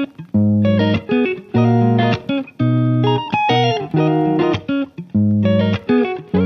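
Background music led by plucked guitar, playing short note phrases separated by brief gaps.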